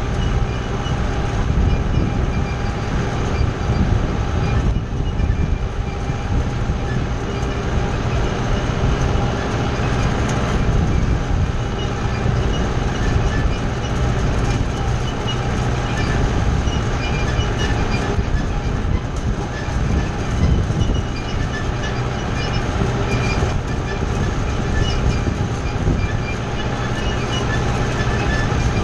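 Kubota tractor's diesel engine running steadily under load, pulling a hay wheel rake, with a continuous mechanical rattle from the tractor and rake.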